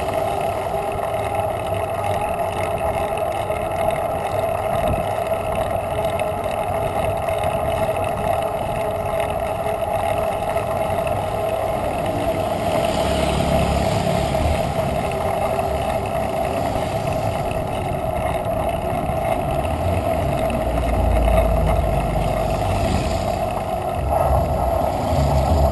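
Steady wind rush over a bicycle-mounted camera's microphone, with road noise from riding along a paved street. A motorbike passes and is briefly louder about halfway through, and a low engine rumble rises near the end.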